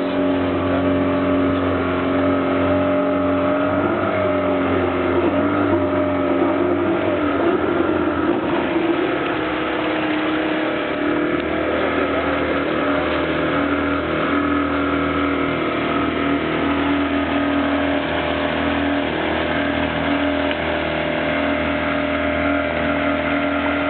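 Small outboard motor running steadily under load, pushing a pontoon raft across a river; its pitch wavers briefly about four to eight seconds in, then holds steady.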